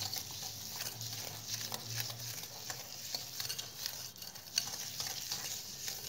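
Butter and powdered sugar being mixed by hand in a glass bowl: soft, irregular scraping and squishing with small clicks against the glass.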